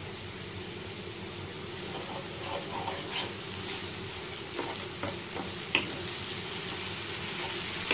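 Chopped onions and garlic-ginger paste sizzling in oil in a nonstick frying pan, stirred with a wooden spatula that gives a scatter of clicks and taps against the pan, most of them in the second half.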